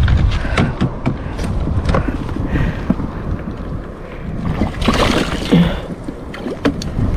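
Wind buffeting the microphone over water lapping against a fishing kayak's hull, with scattered small clicks and a brief louder noisy burst about five seconds in.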